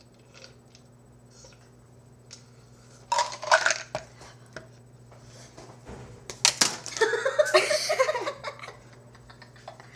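A person burping: a short loud sound about three seconds in, then a long, loud, wavering burp lasting about two seconds from around six and a half seconds in.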